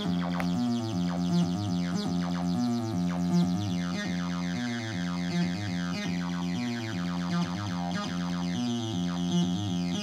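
ML-303, a TB-303-style bass synthesizer whose oscillator runs in software on a microcontroller, playing a sequenced acid bassline that loops every two seconds. Its filter knobs are being turned, so the bright, squelchy edge of the notes shifts as the pattern repeats.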